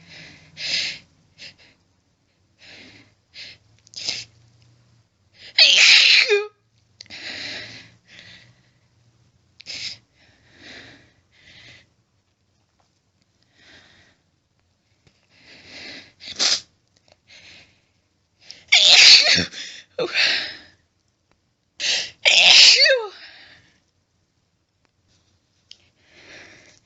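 A woman's loud, wet sneezes in a long fit, with short gasping build-up breaths between them and the loudest sneezes in clusters. They come from a nose left itchy and burning after stifling many sneezes, and are sneezed into a washcloth held in front of the face.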